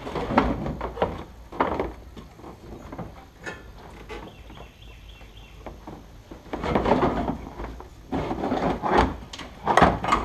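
Irregular knocks, bumps and scraping as a steel bolt-in roll cage is maneuvered into a car's interior against the trim, in two busy spells with a quieter stretch between.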